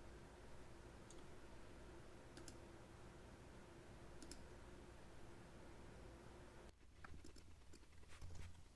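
Faint, scattered computer mouse clicks over a low steady hum, otherwise near silence.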